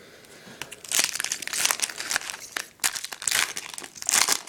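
Foil wrapper of a trading card pack crinkling in the hands as it is torn open, starting about a second in, in irregular flurries.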